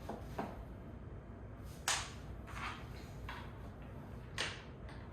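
Hard office-chair parts being handled and fitted during assembly: a handful of separate sharp knocks and clicks, the loudest about two seconds in.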